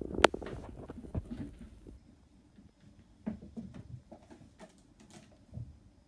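Cats climbing about a carpeted cat tree: a flurry of claw scratches and light paw thumps in the first two seconds, then scattered softer thumps and scrapes.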